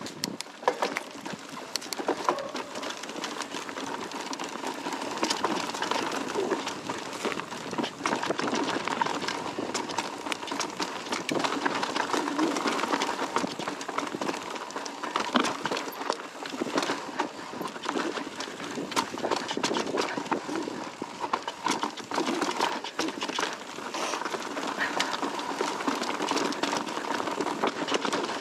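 Mountain bike descending a rough singletrack trail: tyres rolling over dirt and rock, with frequent rattles and knocks from the bike, and a faint steady whine underneath.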